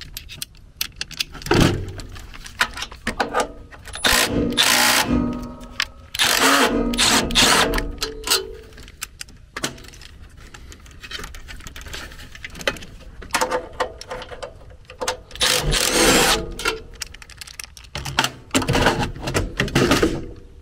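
Cordless drill-driver with a 5/16 nut-driver bit running in about six short bursts on sheet-metal screws. Between the bursts are clicks and clatter of the bit and metal parts.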